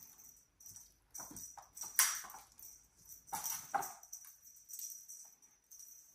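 Sphynx kittens leaping and pouncing at a wand teaser toy, their paws landing and scrabbling on a hard floor and rugs. Irregular soft thumps and scuffles, the loudest about two seconds in.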